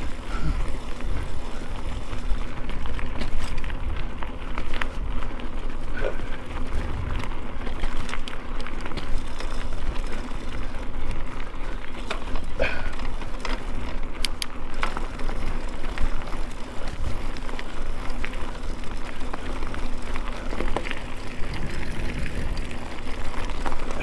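Mountain bike being ridden: steady wind rumble on the microphone, with scattered clicks and rattles from the bike and trail.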